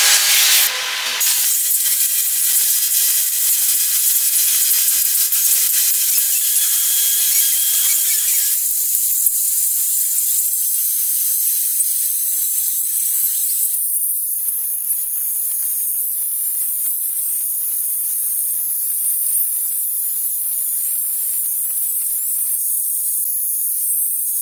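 Steady high-pitched hiss with almost no low sound beneath it, changing in tone abruptly a few times.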